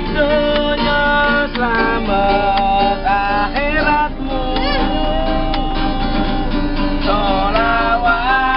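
A busker singing a slow melody with long held, wavering notes, accompanied by a strummed and plucked acoustic guitar.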